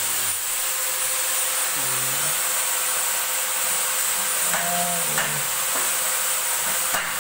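Electric arc welding on steel tubing: a steady hiss with a faint electrical hum, broken by a few light metallic clinks in the second half as the steel tubes are handled.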